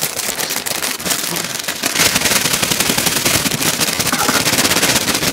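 Paper bag of KFC shaker fries (kentang goncang) being shaken hard to coat the fries in seasoning powder: a fast, continuous crinkling rattle of paper and fries, louder from about two seconds in.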